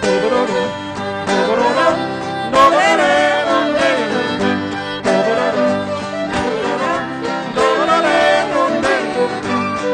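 Live acoustic band music in a country/bluegrass style: a fiddle carrying a wavering melody over strummed acoustic guitar.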